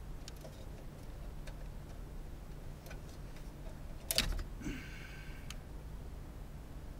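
Small ticks and clicks of a plastic wiring connector being handled and unplugged from the back of a car radio, with one sharp click about four seconds in followed by a brief metallic rattle. A low steady hum runs underneath.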